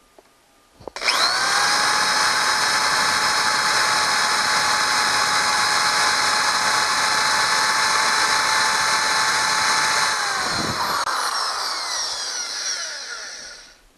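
Power drill running at a steady speed, its screw-extractor-set drill bit boring into a broken screw stuck in a leaf blower's cylinder. After about ten seconds the trigger is let go and the motor whine falls in pitch as the drill spins down. The bit is making little headway.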